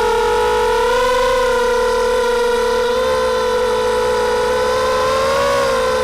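Four brushless motors with 5-inch props on an FPV250 mini quadcopter, buzzing steadily in flight. The pitch rises a little with throttle about a second in and again near the end.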